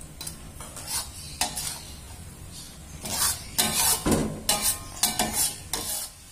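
Metal spatula scraping and stirring in an aluminium wok while spice paste and sliced spring onion sizzle in oil. The strokes are sparse at first, then come quicker and louder from about three seconds in.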